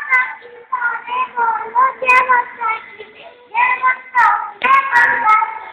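A young child singing in a high voice, in short phrases with brief pauses.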